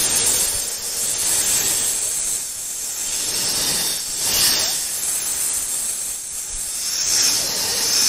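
King cobra hissing: a long, breathy hiss that swells and eases, loudest about four and a half seconds in and again about seven seconds in.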